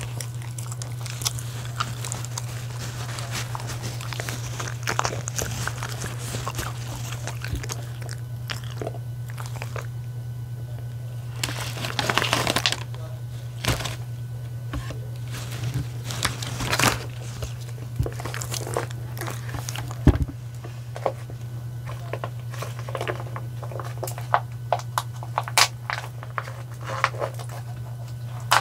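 A miniature schnauzer and a West Highland white terrier chewing and crunching pieces of dog-food donut, a scatter of sharp bites and mouth clicks, with louder crunches around the middle, over a steady low hum.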